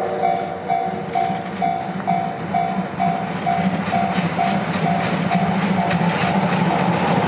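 Level-crossing warning bell ringing about twice a second and fading out in the last couple of seconds, over the steady rumble and wheel clatter of the D51-hauled train rolling past.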